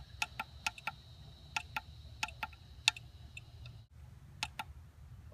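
Irregular light clicks from a SARK-100 SWR analyzer being handled and its push-buttons pressed to step the test frequency. Under them runs a low steady hum, with a faint high whine that stops about four seconds in.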